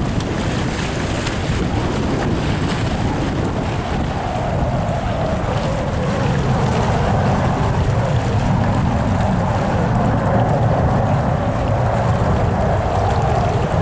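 Boeing 747 jet engines rumbling as the airliner touches down and rolls out along the runway, with wind buffeting the microphone. The engine noise grows louder about four seconds in and stays up.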